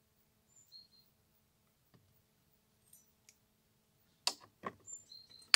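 A few sharp clicks and knocks of metal hand tools being handled on a workbench, starting about four seconds in, with the loudest knock near the end as needle-nose pliers are lifted and set down.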